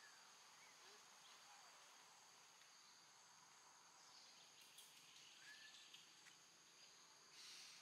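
Near silence with a faint, steady high insect drone, broken by a few faint short chirps and a brief burst of noise near the end.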